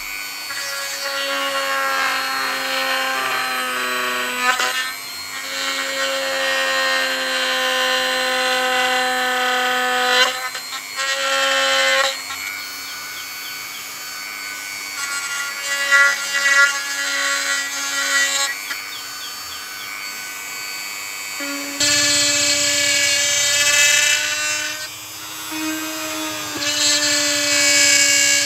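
Handheld electric rotary tool with a thin engraving bit cutting into PVC pipe. Its motor gives a steady whine that dips and shifts in pitch as the bit bites into the plastic and is eased off.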